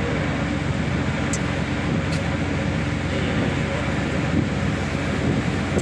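Boat engine running steadily, a constant low drone under wind noise.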